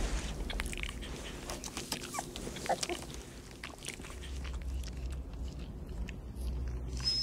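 Newborn puppies whimpering with brief squeaks, among small wet clicks of a mother dog licking them.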